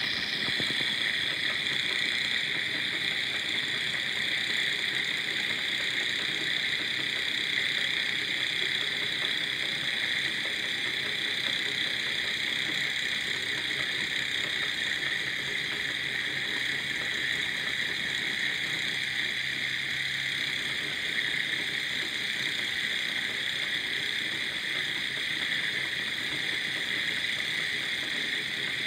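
Small twin-cylinder Stirling (hot-air) engine model running steadily as it drives a wooden automaton's crank, a continuous even whir that does not change.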